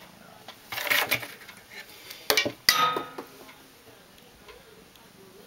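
A kitten moving about on a desk among papers and books: a brief rustle about a second in, then two sharp clicks a little past two seconds, the second ringing briefly.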